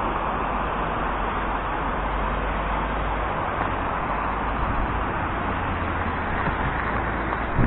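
Steady city traffic noise, an even hum of passing cars with a low rumble underneath.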